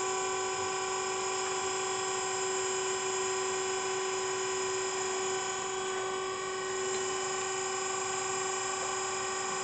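Harig Super 612 surface grinder with its Pope spindle running, a steady whine made of several held tones. One lower tone drops away about five and a half seconds in.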